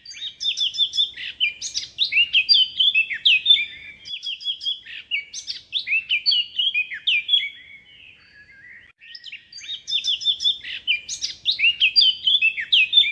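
Small birds chirping and twittering: many quick, high, overlapping calls, thinning briefly about eight seconds in before picking up again.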